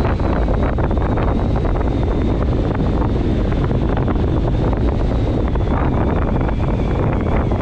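Steady rush of airflow buffeting the microphone of a camera mounted on a hang glider in flight. A faint high whistle holds steady through it.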